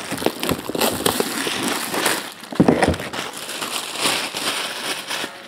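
Plastic shrink-wrap crackling and crinkling as it is torn and pulled off a trading card box, with a single knock about two and a half seconds in.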